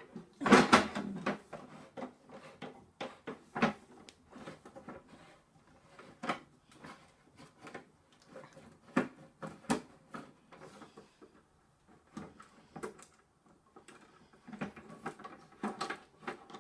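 Scattered clicks and knocks of a Reason8 burglar-alarm bell box being handled and opened. The loudest knock comes about half a second in, with irregular smaller clicks after it.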